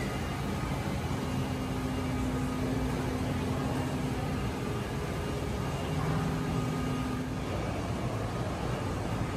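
Steady airport-terminal background noise: a low, even rumble and hum, with a few faint steady tones that come and go.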